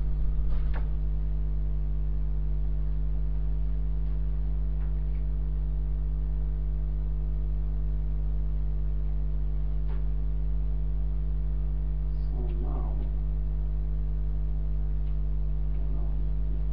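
Steady electrical mains hum in the recording: a low drone with a stack of higher hum tones, unchanging throughout. A few faint clicks and a brief soft rustle break in, with faint taps of chalk on the blackboard near the end.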